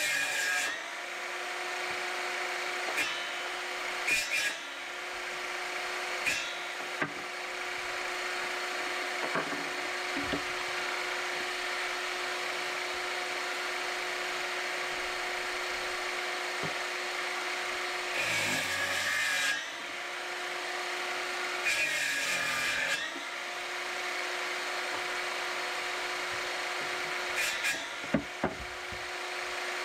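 Electric saw motor running at a steady speed. Twice, a little past halfway, its pitch sags briefly under load with a rasping cut through wood. A few short knocks of wood being handled come through around it.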